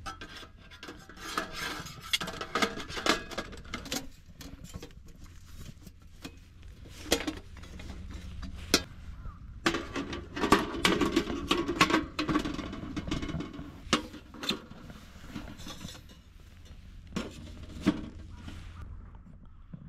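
Metal parts of a Soomloom Ideal wood-burning stove being handled and fitted together during setup: scattered knocks and clinks, with scraping and rubbing between the pieces, busiest about halfway through.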